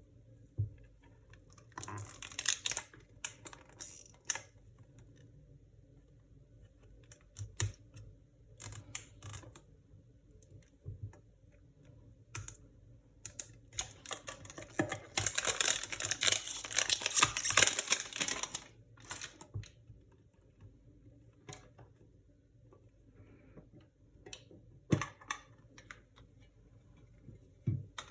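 Hands unboxing a Pokémon card mini tin: scattered clicks and rustling of packaging, with a longer stretch of steady rustling a little past halfway.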